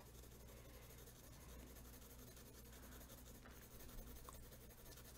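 Faint scratching of a dark green coloured pencil shading very lightly across drawing paper.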